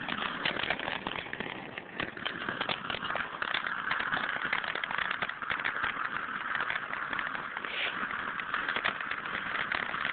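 Lit ground firework spraying sparks with a continuous hiss and dense, rapid crackling.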